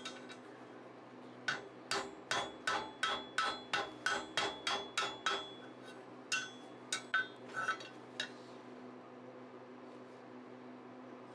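Hand hammer striking a red-hot flat bar over the anvil horn, bending it into a curve: a quick, even run of about a dozen blows at roughly three or four a second, then a few scattered blows that stop about eight seconds in.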